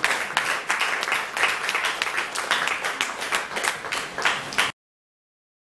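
Audience applauding: many hands clapping in a dense, irregular patter that cuts off suddenly near the end.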